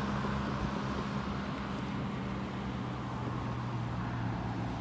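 A vehicle engine running steadily: a constant low hum over an even background noise.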